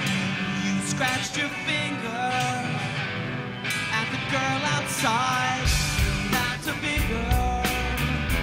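Live rock band playing: a male singer sings over electric guitars and drums. A heavy bass part comes in about five and a half seconds in.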